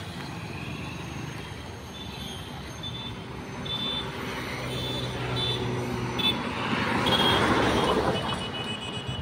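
Road traffic going by: vehicle engines running and tyre noise, with short high-pitched tones sounding a few times. A vehicle passes close and swells loudest near the end.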